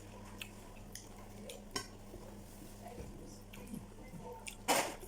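Cutlery clinking and scraping against a plate while eating, as scattered light clicks, with one louder, short noisy scrape near the end.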